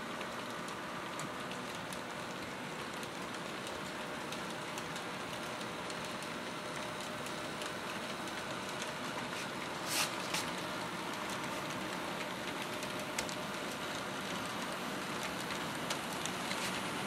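HO scale model trains rolling on the layout's track: a steady rattling rumble of many small wheels on rail, with scattered sharp clicks as wheels cross rail joints and turnouts, the sharpest about ten seconds in.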